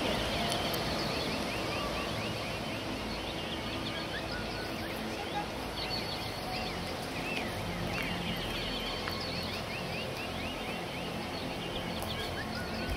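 Many small birds chirping in short repeated calls over a steady background rumble of outdoor noise.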